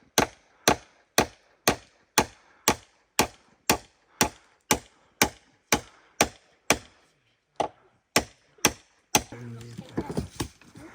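Steady chopping on wood, about two sharp strokes a second, with a brief pause about seven seconds in; the strokes stop about nine seconds in.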